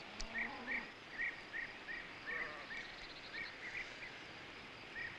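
A small bird chirping over a steady background hiss: a string of short, matching chirps, two or three a second, that thins out near the end.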